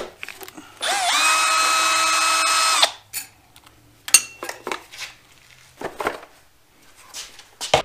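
Cordless driver spins up and runs steadily for about two seconds with a high whine, backing out the bolt that holds the rotating grass screen on a Kawasaki 19 hp engine. Light clinks and knocks follow as the screen and bolt are handled.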